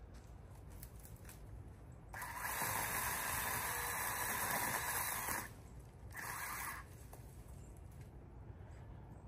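Pole saw running in a burst of about three seconds, then cutting in again briefly for under a second.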